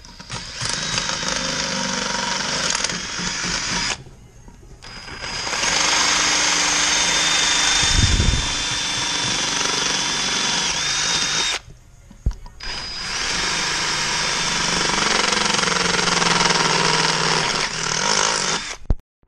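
Cordless drill boring out the lug-nut holes of a chrome wheel to widen them, running in three long runs with short pauses between. A dull thump is heard about eight seconds in.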